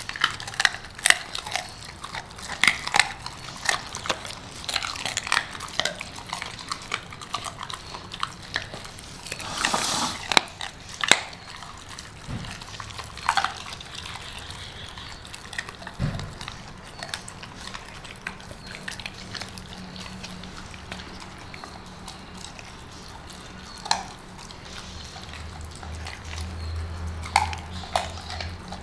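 A Rottweiler crunching and chewing chicken feet. Sharp, quick crunches of bone come thick in the first half and grow sparser later.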